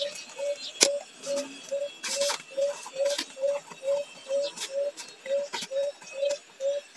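A short note at one steady pitch repeating evenly about three times a second, with light taps and rustles of hands folding glued fabric over the edge of a cardboard box.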